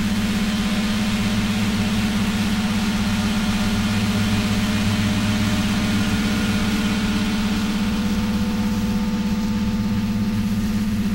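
Steady low drone with a fast flutter and a hiss above it: ambient and industrial sound run through an oscillator and a Korg analog synth.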